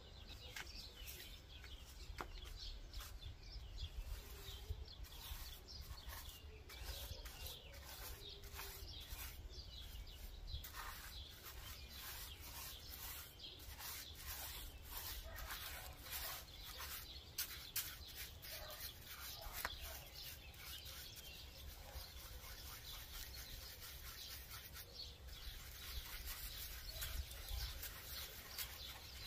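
Paintbrush dabbing and scrubbing lime wash into a rough, pitted stone window sill: faint, irregular scratchy brush strokes over a low background rumble.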